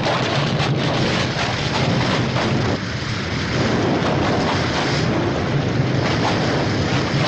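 Sound effect of rocks and debris collapsing: a continuous low rumble thick with crackling small impacts, like a thunder crackle, dipping briefly about three seconds in.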